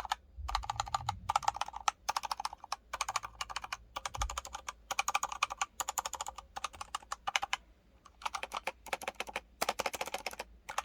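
Razer Phantom Edition 65% mechanical keyboard with linear yellow switches being typed on fast: a rapid clatter of keystrokes in bursts with short breaks between them, and a brief stop about eight seconds in.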